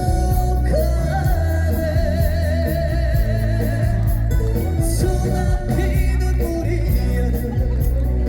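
A Korean trot song: a male singer holding long notes with wide vibrato over a band accompaniment.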